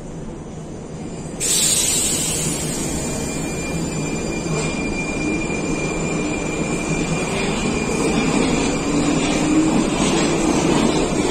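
An 81-71M metro train departing from an underground platform. About a second in, a loud hiss starts suddenly. The train's motors then give a whine that rises slowly in pitch as it pulls away and gathers speed.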